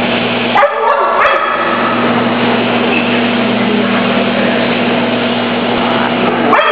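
Dogs barking in a kennel: two short barks close together about half a second in, another near the end, over a steady din and a low hum.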